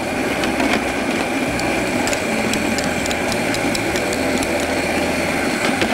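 Electric stand mixer running steadily as it beats a soft, loose yeast dough, its motor humming with scattered light clicks and knocks from the bowl and attachment.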